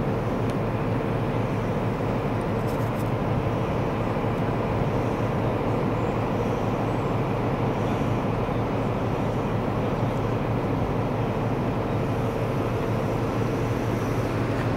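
HST (InterCity 125) passenger train in motion, heard from inside the carriage: a steady rumble of wheels on track with a faint constant hum.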